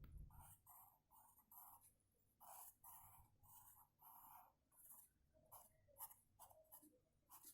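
Faint scratching of handwriting: a run of short, separate strokes as a word is written out.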